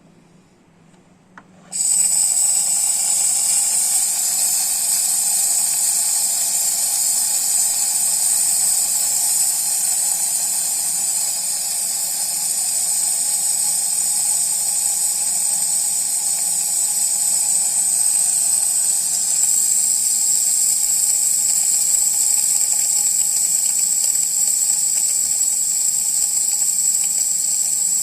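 Espresso machine steam wand switching on about two seconds in and hissing steadily.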